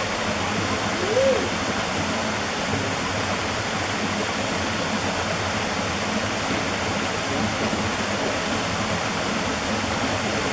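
Waterfall rushing steadily. About a second in there is one brief rising-and-falling call.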